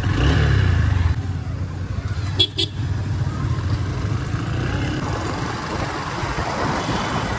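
Motorcycle engine running under way with road and wind noise, louder in the first second; two quick horn toots about two and a half seconds in.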